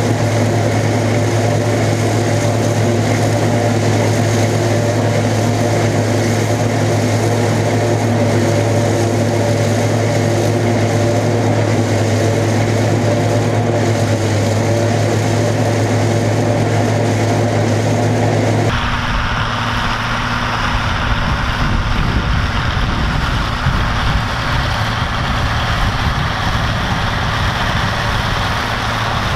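Allis-Chalmers 190XT tractor and the PTO-driven Gehl 750 forage harvester it pulls, running at a steady, even hum while chopping standing corn, heard up close. About 19 seconds in, the sound cuts abruptly to the same rig heard from further off, a rougher rumble without the steady hum.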